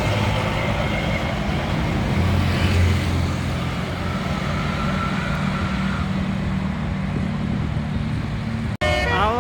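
Road traffic with bus and car engines running and tyre noise. In the last half second, after a sudden break in the sound, a multi-tone telolet (Basuri) bus horn starts up with a rising glide into a chord of several notes.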